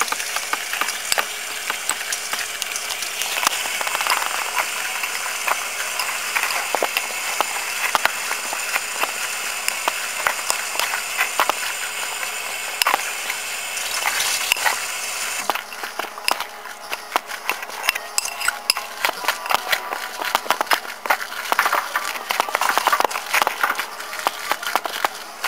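A spoon stirring and scraping a thick ricotta, spinach and egg filling in a glass bowl, with irregular clicks and clinks against the glass. A steady hiss under the first part stops about fifteen seconds in, and the stirring strokes then come thick and fast.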